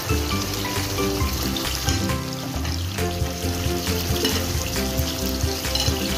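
Chicken caldereta stew simmering in a pan, its tomato sauce bubbling and sizzling steadily, with background music.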